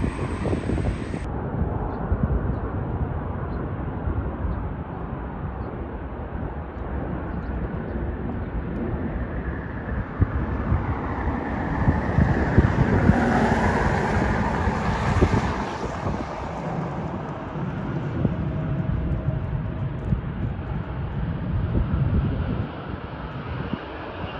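Jet airliner engines: a steady rumble that builds to its loudest about halfway through, with a whine that drops in pitch as the aircraft passes, then eases off.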